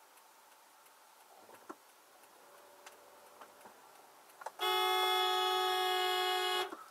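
Car horn sounded in one long steady blast of about two seconds, starting a little past halfway and cutting off just before the end. Before it there is only faint quiet with a few small clicks.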